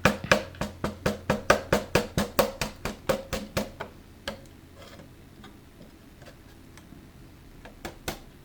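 A hand scraper scraping wood in fast, even strokes, about five a second, taking leftover kerfing off the inside of an old guitar body. The strokes stop a little over halfway through and start again near the end.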